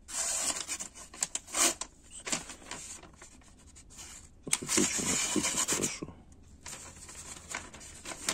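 A sheet of newspaper rustling and crinkling as it is handled around a knife blade, in two stretches: one at the start and one about halfway through.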